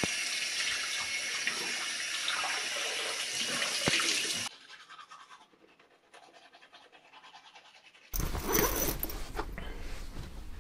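Water running steadily in a bathroom, cut off suddenly after about four and a half seconds. Then comes the faint scrubbing of a manual toothbrush on teeth, and about eight seconds in a low hum starts.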